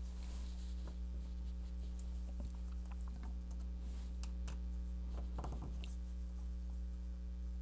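Faint, scattered clicks and scrapes of a small Phillips screwdriver working the screws that hold the metal bracket over the laptop's touchpad, over a steady low hum.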